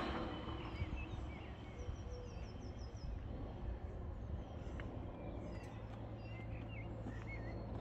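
Small birds chirping now and then, including a quick run of high chirps about a second in, over a steady low background rumble.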